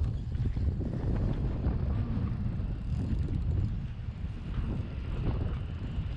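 Strong wind buffeting the microphone: an uneven low rumble that does not let up.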